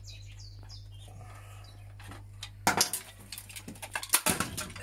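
The white plastic casing of a handheld Vax vacuum cleaner being prised and pulled apart. After a quiet stretch, a quick run of sharp plastic cracks and clicks starts a little over halfway through as the housing clips give.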